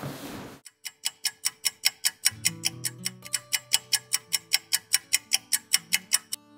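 Fast, even clock-style ticking, about four to five ticks a second, on the soundtrack, with low held music notes coming in about two seconds in.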